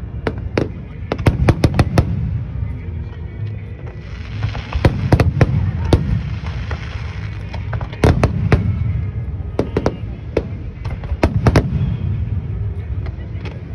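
Aerial firework shells bursting in quick clusters of sharp bangs over a continuous low rumble, with a steady hiss about four to seven seconds in.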